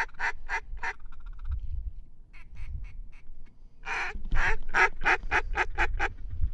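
Duck call blown in runs of quick, evenly spaced quacks, about four a second: a short run at the start, a few faint notes in the middle, then a louder run of about nine.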